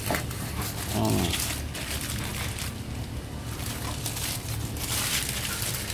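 Knife scraping and rustling as freshly caught white catfish are filleted by hand, in short irregular spells over a steady low hum.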